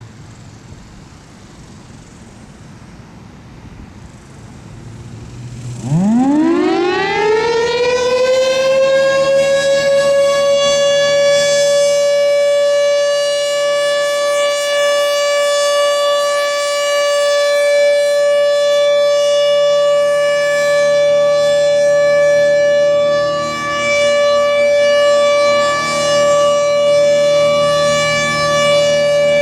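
Federal Signal Thunderbolt 1000A outdoor warning siren starting up about six seconds in, its pitch rising quickly and then holding one steady tone for the alert signal, swelling and dipping slightly in loudness as the rotating horn turns. Before it starts, only wind noise on the microphone.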